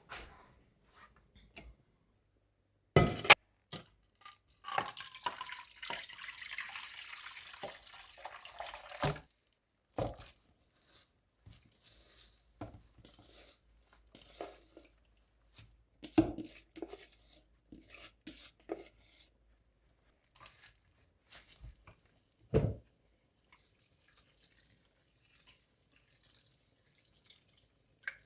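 Kitchen water running for about four and a half seconds, then stopping, followed by scattered knocks, drips and clatter of things being handled in a sink.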